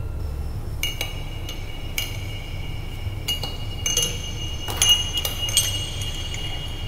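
Steel spoons stirring in drinking glasses, clinking against the glass in an irregular run of ringing clinks from several glasses at once, starting about a second in and busiest past the middle.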